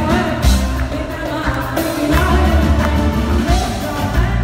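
A live band playing pop music with a woman singing over a heavy low beat and regular drum hits.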